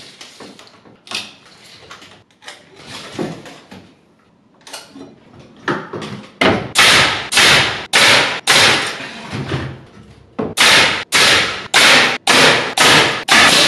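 A pneumatic nail gun firing nails into a wooden stud: about a dozen sharp shots in two quick runs, roughly two a second, starting about halfway through. Before that, light knocks and rattles from the thin wooden arch being handled and set in place.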